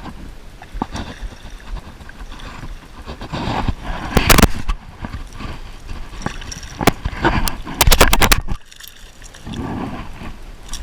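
Water sloshing and splashing with a run of sharp knocks and clatters, the loudest about four seconds in and a quick cluster of them near eight seconds.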